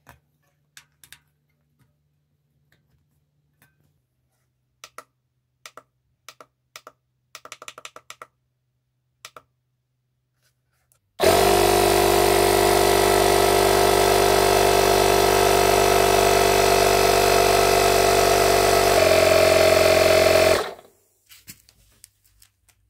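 A series of light clicks and taps as the air chuck is fitted and handled, then the Parkside PMK 150 A1 portable tyre-inflator compressor starts and runs steadily for about nine seconds, pumping air into a bicycle tyre. Its tone shifts slightly near the end before it stops abruptly.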